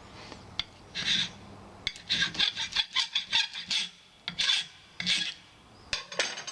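Hand file rasping across the winding of a microwave oven transformer, a scratch test to see whether the wire is copper or aluminum; the winding proves to be aluminum. A single stroke, then a quick run of about eight short strokes, then two longer strokes.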